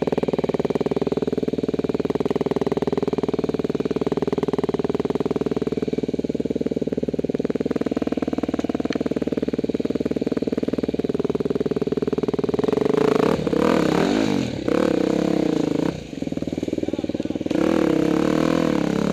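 Dirt bike engine running at a steady low speed, then from about two-thirds of the way in revving up and down in repeated surges as the bike climbs over rocks, with one brief drop-off in between.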